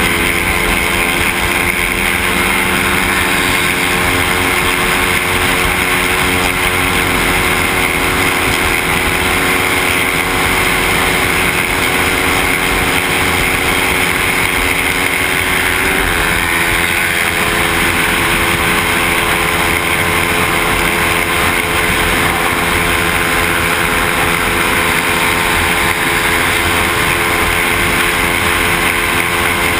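Motorcycle engine running at a steady cruising speed, heard from a handlebar-mounted camera, with heavy steady wind rush over the microphone. The engine note shifts about halfway through, then holds steady again.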